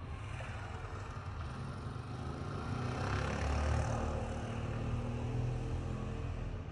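A vehicle passing by: engine rumble and road noise that swell to a peak about halfway through, then ease off.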